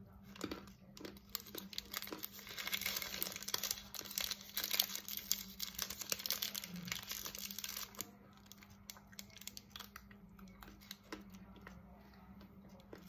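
Foil wrapper of a Magnum ice cream bar crinkling and tearing as it is peeled back, a dense crackle for several seconds from about two seconds in, with scattered lighter crackles before and after.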